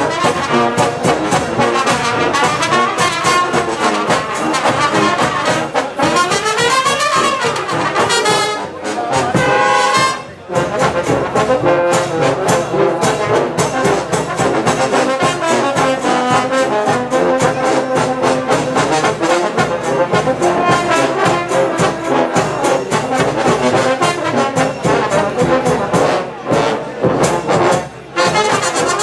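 A Romanian children's brass band (fanfară) playing: trumpets, tenor horns and other brass over a steady drum beat. The playing breaks off briefly about ten seconds in and again just before the end.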